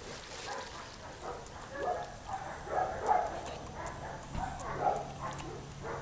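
A dog barking several times, faint and irregular.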